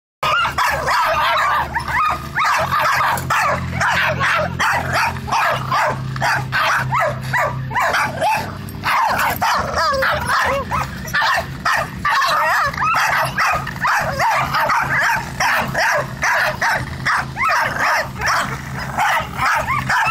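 A group of small dogs, among them a pug and a black-and-white terrier, barking and yipping at a cat, with many barks overlapping and no break between them.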